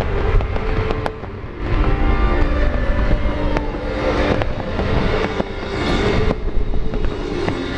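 Large fireworks display going off: a continuous deep rumble of shell bursts with sharp cracks several times.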